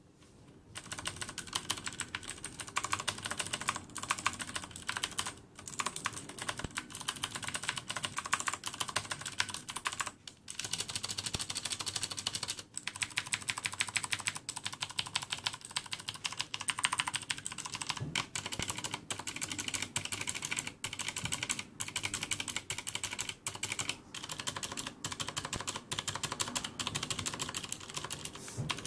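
Continuous fast typing on a Corsair K70 mechanical keyboard with clicky Cherry MX Blue switches and no O-ring dampeners fitted, so each key bottoms out fully. It is a dense run of sharp key clicks that starts about a second in and breaks off briefly a couple of times.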